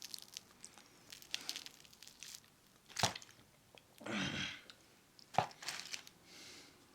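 Mouth noises of someone eating fried chicken wings: soft chewing with scattered crunches and sharp clicks. The loudest click comes about three seconds in.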